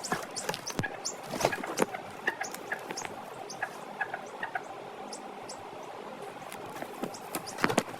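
Chicks peeping in many short, very high cheeps, with scattered sharp clicks and taps.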